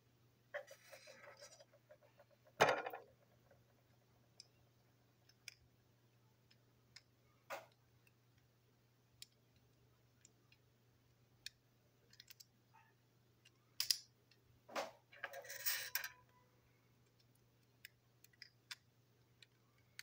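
Small plastic toy-train parts and tiny screws being handled and set down on a tabletop: scattered light clicks and clatter, with a sharper knock about two and a half seconds in and a brief burst of rattling a little past the middle. A low steady hum runs underneath.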